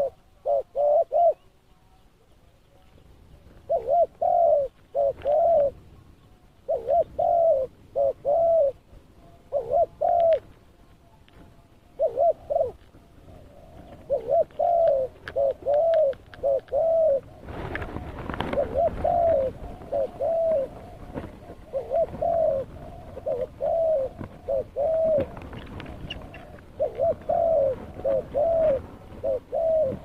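Spotted dove cooing: short phrases of two to four soft, arched notes, repeated every second or two. A stretch of rushing background noise rises a little past halfway.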